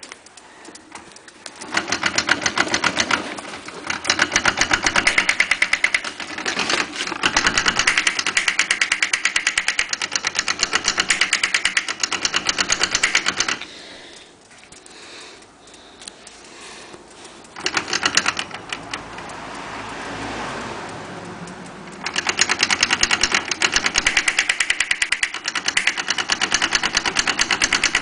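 Rapid mechanical clicking rattle that comes in long bursts and stops in between: the abnormal noise being recorded.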